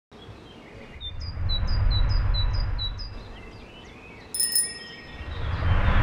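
Road traffic crossing an old stone bridge: two passing cars, each a low rumble that swells and fades, the second building near the end. A small bird calls in quick, even, repeated notes over the first pass, and a short bright ringing tone sounds about four seconds in.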